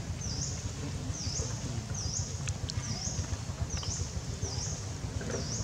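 A high, sharp chirping call repeated about once a second, each chirp dipping and rising in pitch, over a steady low rumble.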